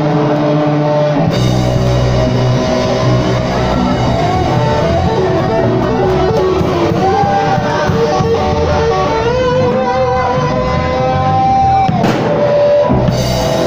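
Live rock band playing: a Les Paul-style electric guitar leads with long held notes, bent up and shaken with vibrato in the second half, over a drum kit.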